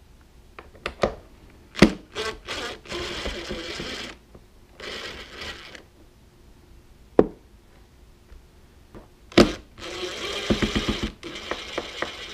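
DeWalt cordless driver running in three short bursts, the last the longest, backing Phillips screws out of a plastic motorcycle trunk liner. Sharp single clicks and knocks come between the runs.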